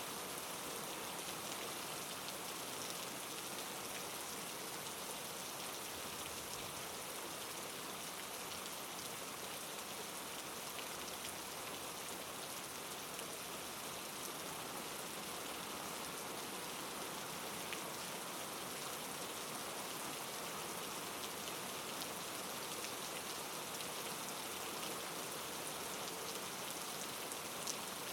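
Steady rain falling, an even hiss of drops with a few faint single drop ticks.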